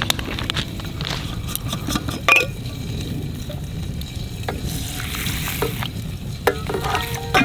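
Food sizzling in a pan, with a steady frying hiss and a few sharp clicks and knocks of utensils, the loudest a little over two seconds in.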